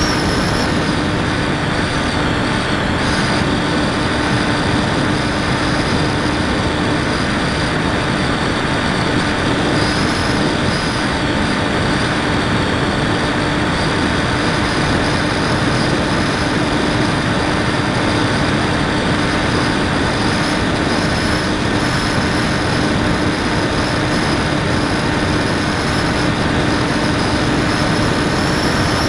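Electric motor and propeller of a Raptor FPV model plane heard from the onboard camera: a steady droning whine over rushing wind noise, holding nearly constant throttle.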